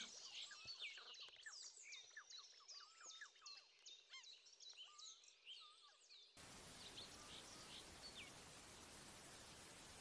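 Faint chorus of small birds chirping and whistling in quick, varied calls. About six seconds in it gives way abruptly to a steady faint hiss, with a few last chirps.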